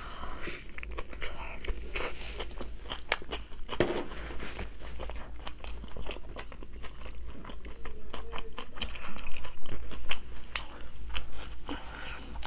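Close-miked eating: crunchy bites and chewing, a run of crisp crunches that is busiest about nine to ten seconds in.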